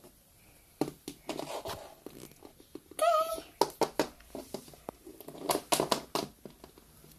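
Plastic toy animal figurines knocked and set down on a wooden floor in a series of light clicks and taps, clustered near the middle and toward the end. About three seconds in, a child makes a short high-pitched vocal sound.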